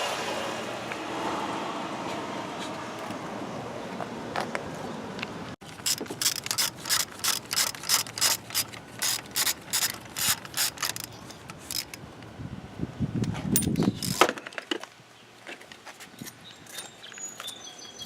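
Hand socket ratchet clicking in a quick, even run of about three clicks a second as a fastener is turned. Before it there is a steady rushing noise that fades, and after it a couple of knocks and a scrape.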